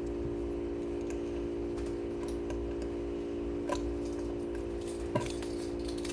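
Scattered light clicks and taps of small hard objects being handled over a steady background hum, with a sharper click about five seconds in.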